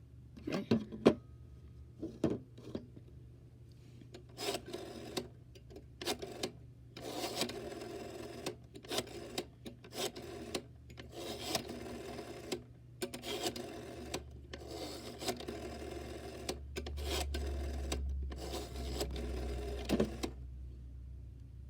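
Rotary telephone dial being wound and whirring back, about a dozen times in a row, each spin lasting about a second. Sharp clicks and a short beep come in the first couple of seconds, and a low hum sits under the last few seconds.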